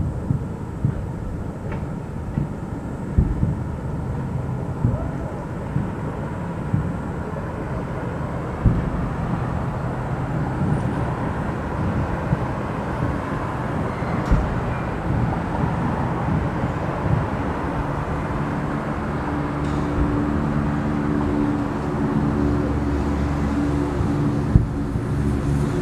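Fireworks display heard at a distance: a steady low rumble with a few sharp, scattered bangs from shells going off. A steady low drone joins in from about twenty seconds in.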